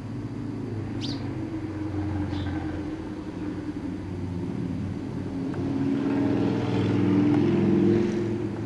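Drone of a passing vehicle's engine, low and wavering in pitch, growing louder to a peak near the end. Two short high chirps about one and two seconds in.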